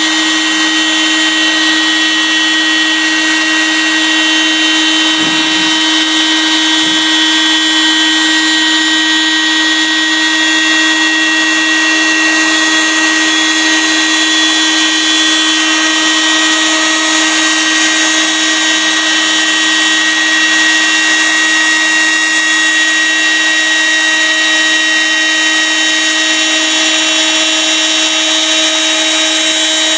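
CNC router spindle running at a constant high speed, giving a steady whine, while its small end mill cuts grooves through wood.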